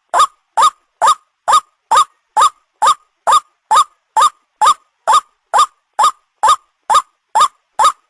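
White-breasted waterhen call, played as a hunting lure: short, loud 'kruak' notes repeated in a steady, even series of about two a second, each note rising then falling in pitch.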